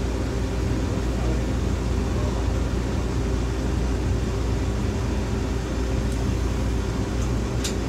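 Steady running noise of an electric railcar heard from on board: a constant low hum with steady motor tones under the rumble of wheels on rail. A couple of light sharp ticks come near the end.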